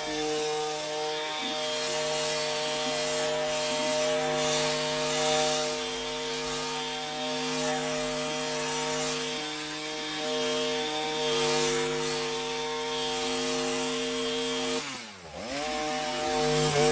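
Proyama 42.7cc two-stroke multi-tool engine running at high revs, driving the hedge trimmer attachment. About fifteen seconds in the revs drop sharply as the throttle is let off, then climb straight back up.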